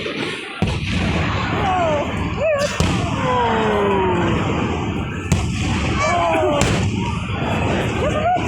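Fireworks going off: a string of sharp bangs, several seconds apart, over a continuous deep rumble of aerial shells bursting.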